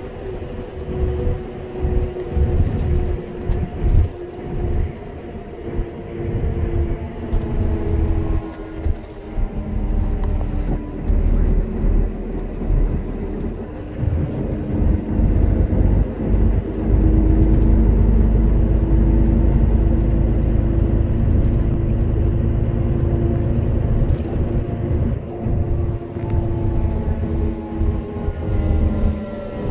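Road noise inside a vehicle travelling at speed on an expressway: a steady low rumble of tyres and engine with a few held, slowly shifting tones, growing heavier and steadier for several seconds past the middle.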